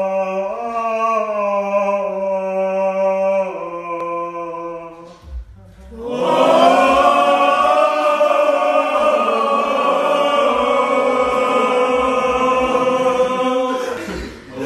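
A man singing long held notes, stepping up and back down in pitch. After a short break about five seconds in, a group of young men sings a sustained chord together, a cappella.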